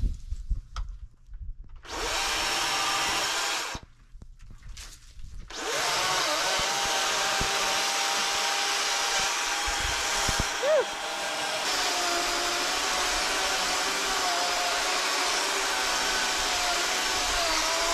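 Battery-powered chainsaw cutting a pine limb: a short cut, a pause, then a long steady cut from about six seconds in, its motor whine wavering as the chain bites.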